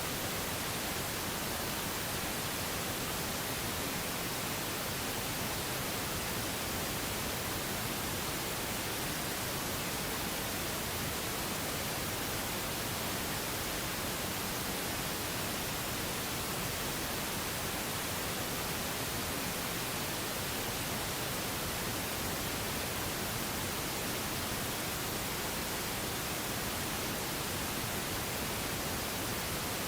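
Pink noise for sleep: an even, waterfall-like hiss that holds at the same level throughout.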